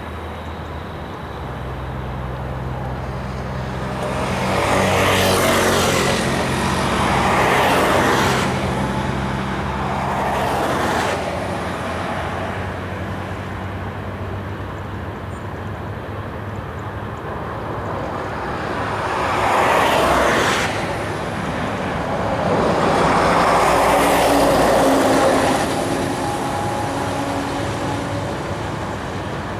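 Road traffic passing close by, heavy diesel lorries among the cars: about five vehicles swell up and fade one after another in a rush of tyre and engine noise. Under the first half a low, steady diesel engine hum runs beneath the passes.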